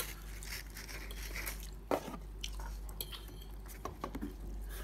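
Close-up eating and handling sounds: a person chewing cheese pizza, with small crackles and clicks as a paper napkin is handled over the cardboard pizza box. A sharper click comes about two seconds in, and a few more come near the end.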